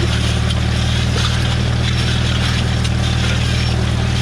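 Farmall M tractor's four-cylinder engine running at a steady speed.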